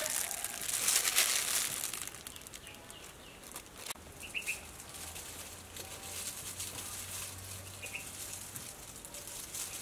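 Gloved hand squeezing wet grated coconut over a mesh strainer: plastic glove crinkling and rustling, loudest in the first two seconds, then softer. Two short bird chirps are heard later.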